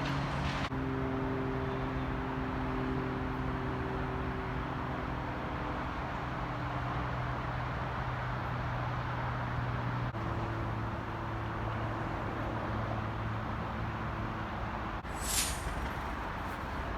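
Diesel passenger locomotive idling with a steady low hum, and a short high hiss about fifteen seconds in.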